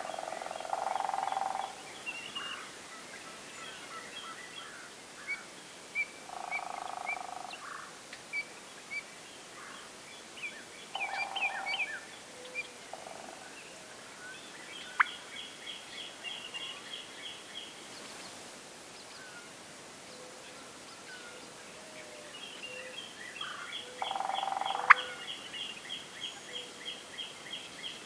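Wild turkey gobblers gobbling about four times, each gobble a rattling call about a second long, over songbirds chirping and trilling. Two sharp clicks stand out, one about halfway through and one near the end.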